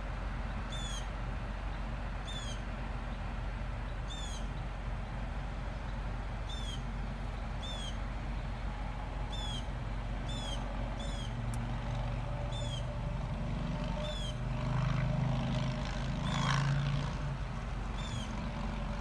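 A bird calls over and over with a short, falling chirp about once a second, over a steady low hum of traffic. A vehicle engine grows louder in the second half.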